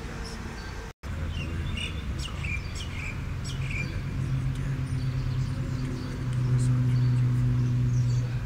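Birds chirping in short calls over a steady low hum, with the hum swelling louder near the end.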